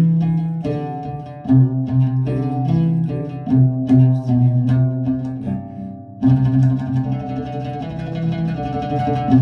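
Oud played with firdash tremolo: the plectrum rapidly re-strikes each note to sustain a melodic phrase. There is a short break about six seconds in before the phrase resumes.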